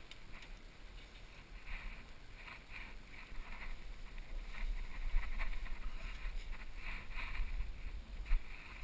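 Wind rumbling on the camera microphone, with irregular knocks and scrapes as kayaks and paddling gear are handled on paving.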